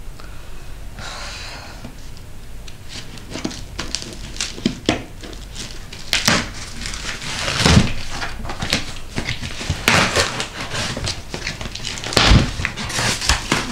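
Scissors snipping and plastic mailer packaging crinkling and rustling as a parcel is cut open. A few louder knocks come from the parcel being handled.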